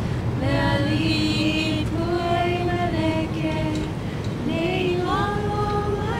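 Women's voices singing a slow tune without instruments, holding long notes that step from pitch to pitch, with a short rising slide about four and a half seconds in.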